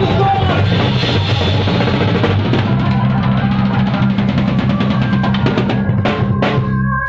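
Drum kit playing a rapid, evenly spaced roll over a sustained chord from the band, building to two big hits about six seconds in as the song ends.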